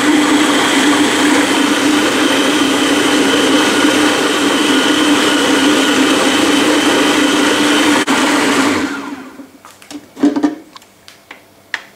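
Food processor motor running steadily under load as it purées chicken liver pâté, then switched off about nine seconds in and winding down. A few clicks and knocks follow as the machine is handled.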